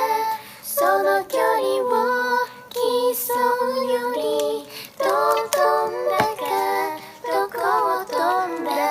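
Female a cappella singing in close harmony: several vocal parts sung by one singer and layered together, moving in phrases with short breaks between them.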